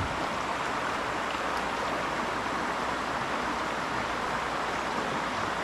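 Steady rush of creek water flowing over shallow rocky riffles.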